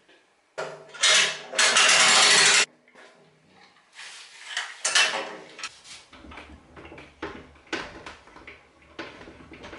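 Metal bow-press parts and a compound bow being handled on a workbench. A loud scraping rattle lasts about two seconds near the start, followed by scattered knocks and clicks.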